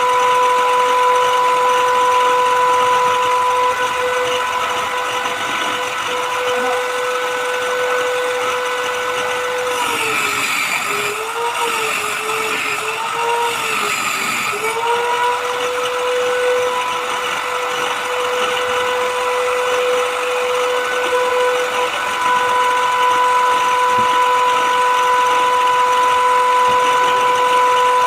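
A high-speed electric power tool running with a steady whine. About ten seconds in, its pitch sags and wavers for roughly five seconds as it comes under load, as when cutting into board, then rises back to full speed.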